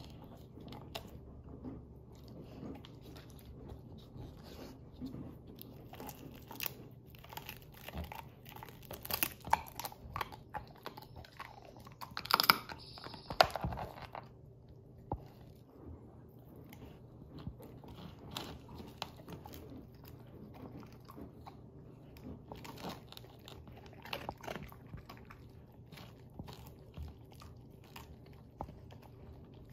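A Great Pyrenees puppy gnawing on a huge meaty bone, with irregular crunching and cracking bites throughout; the loudest crunches come in two spells, about a third of the way in and again just before halfway.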